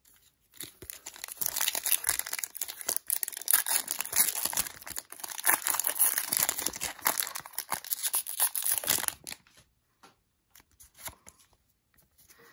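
Foil wrapper of a Pokémon booster pack crinkling and tearing as it is opened by hand, for about nine seconds. It then goes quieter, with a few light ticks and rustles as the cards are handled.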